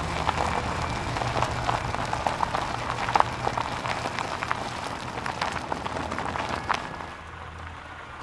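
Car running slowly with a low engine hum, under a crackling, crunching noise full of small clicks that dies away about seven seconds in.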